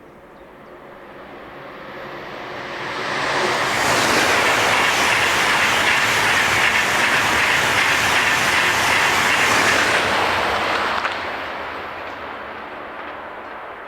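A train passing on the line: it grows louder over the first few seconds, stays loud for about six seconds, then fades away.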